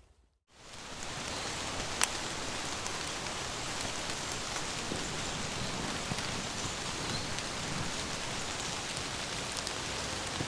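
Steady heavy rain falling on a canvas tent, fading in after a brief silence, with scattered drop ticks and one sharper strike about two seconds in.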